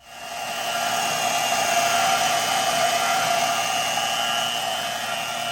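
Electric angle grinder spinning up and running with a steady high whine.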